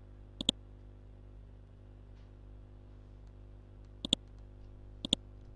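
Computer mouse clicked three times, each click a quick double tick: once near the start, then twice about a second apart near the end, over a low steady hum.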